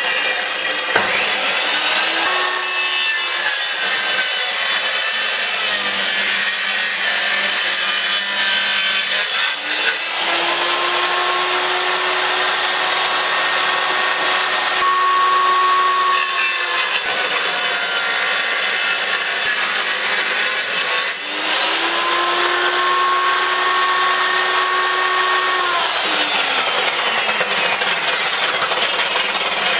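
Power tool working wood, a steady loud rasping noise throughout. Its motor whine rises and holds three times, about 2, 10 and 21 seconds in, each time sliding back down after a few seconds.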